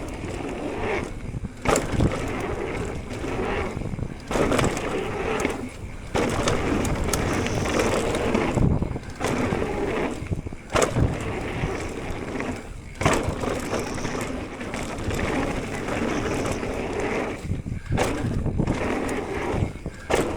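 Orbea Wild e-mountain bike riding fast down a dirt trail: tyres rolling and rumbling over the ground, with repeated sharp knocks and rattles as it hits bumps and drops. A few short gaps break up the rolling.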